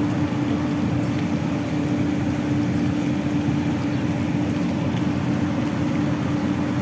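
A steady mechanical hum holding one constant tone over a rumbling noise, unchanging throughout.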